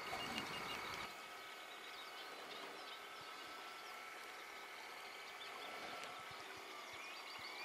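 Faint outdoor ambience with birds chirping: many short high chirps and a few thin steady whistled tones over a soft background hiss. A low rumble drops away about a second in.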